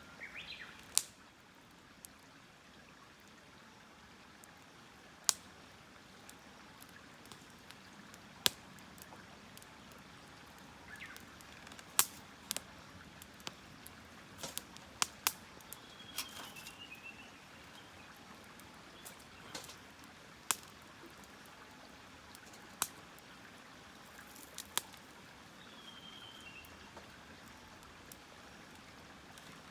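Wood campfire crackling, with about a dozen sharp pops at irregular intervals over a faint steady hiss.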